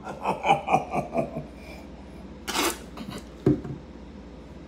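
A man's voice in a rapid run of short pitched bursts, then a sharp breathy burst about two and a half seconds in and a knock about a second later.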